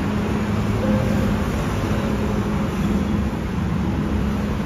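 City road traffic noise: cars running past, a steady dense rush with a low hum underneath.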